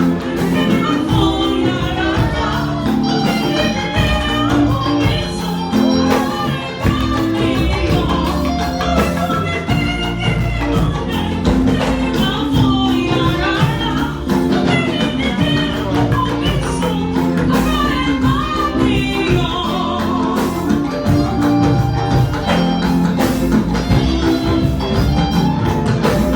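Church anthem: voices singing over instrumental accompaniment with a steady beat.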